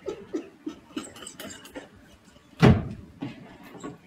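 Bedding rustling with scattered soft knocks as someone stirs under a duvet, then a single loud thump about two and a half seconds in.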